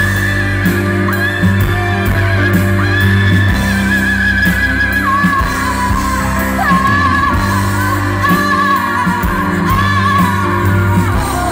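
Live band with a female singer's wordless vocal solo: long, wailing high notes that bend and glide over sustained keyboard chords and bass. It is recorded on a phone microphone overloaded by the volume, so it sounds distorted.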